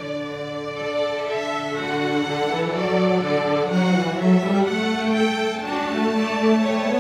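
High school orchestra playing a slow passage, the bowed strings holding long notes that change every second or two and swell gradually louder.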